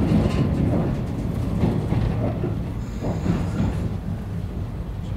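JR West 115 series electric train heard from inside the carriage, slowing into a station: a steady wheel-on-rail rumble with occasional knocks that gets gradually quieter. A brief faint high squeal comes about three seconds in.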